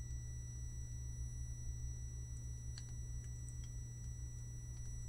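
Energy 8-inch woofer with its voice coil glowing red-hot and smoking, driven to destruction with a 1955 Hz test tone. It gives a faint, steady high tone with overtones and a few faint ticks, over a low hum.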